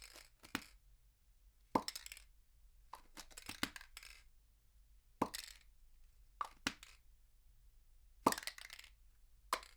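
Aerosol spray paint can being shaken, the mixing ball inside rattling and clinking against the metal. The rattles come in short, sharp bursts about once a second or so, some in quick pairs, with brief pauses between them, heard from a medium distance.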